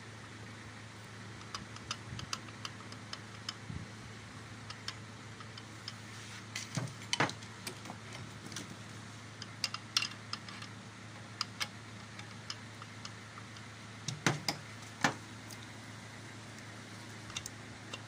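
Small metallic clicks and knocks from handling the connecting rod and its bearing cap on the crankshaft journal and rod bolts of a Nissan MR18 engine, with a few louder knocks about seven seconds in and again around fourteen to fifteen seconds in, over a steady low hum.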